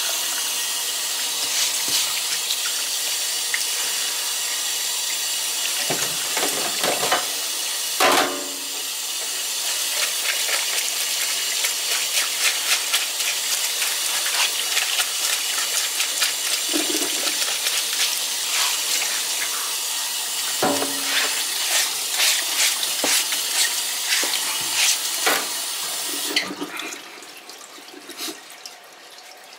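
Kitchen tap running, water splashing onto a fish and cutting board as it is rinsed and rubbed by hand, with a few knocks as the fish is handled. The water stops about three seconds before the end.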